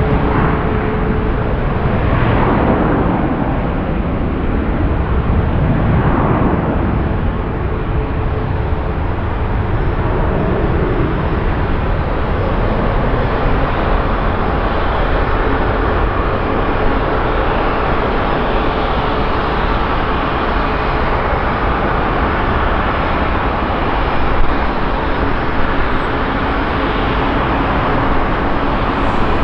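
Boeing 787-10 airliner's jet engines at take-off power: a loud, steady noise through the take-off roll and climb-out.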